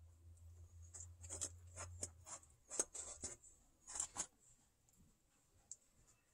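Kittens moving about on paper and among plastic coin holders and stands, making a run of faint, crisp rustles and light taps. The loudest come about three and four seconds in, over a low hum that stops about two seconds in.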